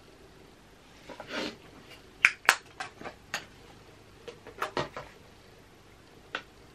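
Makeup items handled at close range: a soft brushing swish about a second in, then a string of sharp, light clicks and taps of small hard objects such as compacts and a brush being picked up and set down, and one last click near the end.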